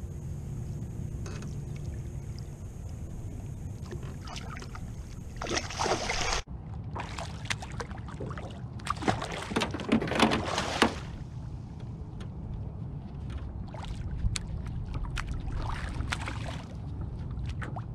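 Water splashing beside a small aluminium jon boat, with a hooked catfish thrashing at the surface, in several bursts between about five and eleven seconds in, over a steady low rumble.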